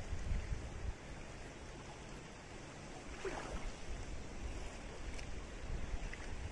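Wind gusting on the microphone over small waves lapping at the shore, easing for a few seconds in the middle and picking up again near the end. A faint short call sounds about three seconds in.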